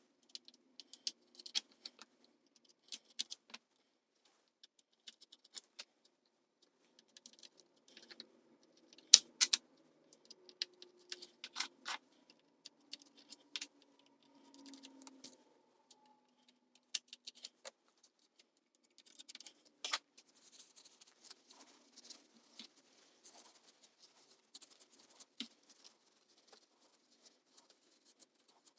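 Faint, scattered clicks and small metallic clinks of hand work on a vintage Fender amp's control panel: knobs being pulled off the potentiometer shafts and the pot and jack hardware handled and tightened. The sharpest clicks come about nine seconds and twenty seconds in.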